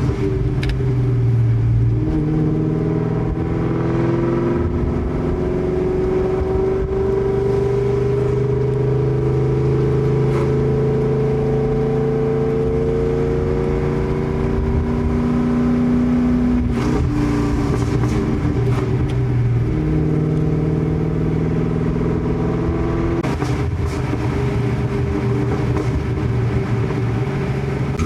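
Terminator Mustang Cobra's supercharged 4.6-litre V8 running through Kooks headers and a Borla ATAK exhaust while driving. The exhaust note climbs slowly in pitch as it pulls, then drops at a gear change about two-thirds of the way through and picks up again.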